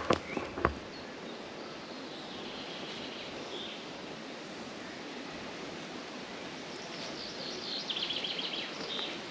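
Woodland ambience: a steady hiss of wind through the trees, with a few clicks in the first second. A bird sings a quick run of repeated high notes near the end.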